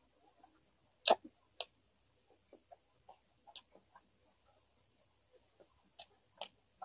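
Close-miked eating sounds: irregular sharp clicks and short smacks of chewing, the loudest about a second in.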